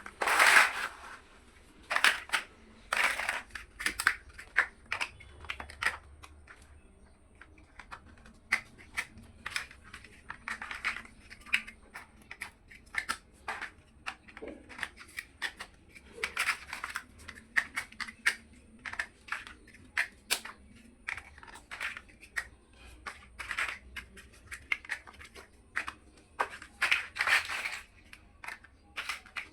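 Small plastic building blocks being handled and pressed together: irregular clicks, taps and short scraping rustles, with a few louder snaps.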